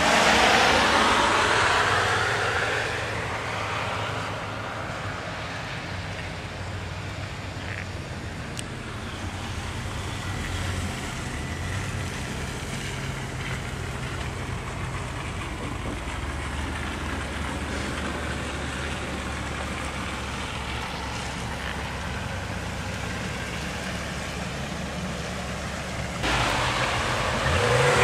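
Cars on a snow-covered road: a passing vehicle's tyre and engine noise swells and fades at the start, then a low, steady engine hum. Near the end the noise grows louder again, with an engine's pitch rising as a vehicle struggles for grip.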